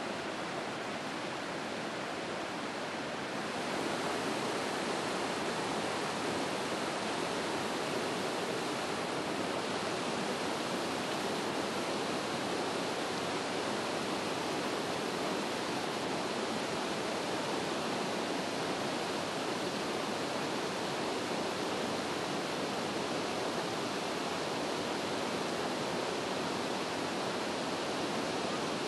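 Steady rush of falling water from Lower Yosemite Fall, an even hiss with no other events. It gets a little louder about three and a half seconds in and then holds steady.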